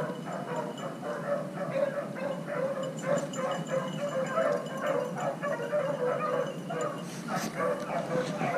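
Beagle pack baying on a rabbit's trail, a continuous run of short repeated bawls and yelps. A couple of sharp knocks come about seven seconds in.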